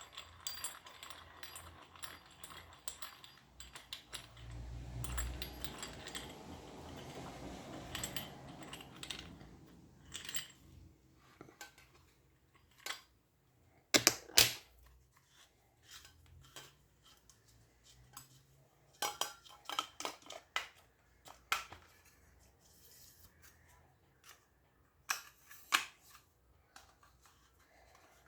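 Parts of an electric fan being handled and fitted together: rustling and scraping for the first several seconds, then scattered sharp clicks and knocks. The loudest is a pair of knocks about halfway through.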